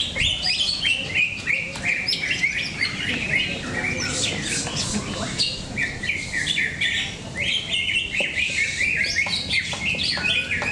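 Several caged green leafbirds (cucak ijo) singing against each other: fast, varied runs of high chirps and whistles overlap almost without a break, over a low background murmur.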